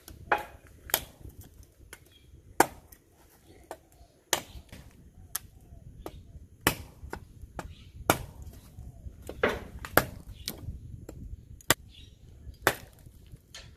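Heavy cleaver-style chopper with an SK85 steel blade chopping into a thin green tree stem: about a dozen sharp chops, irregularly spaced roughly a second apart.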